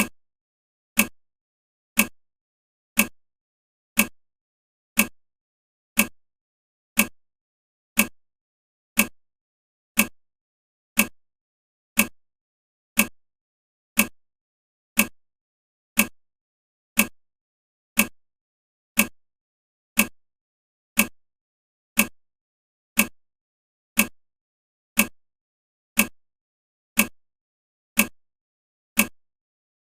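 Countdown timer's clock-tick sound effect: one short, sharp tick every second, evenly spaced.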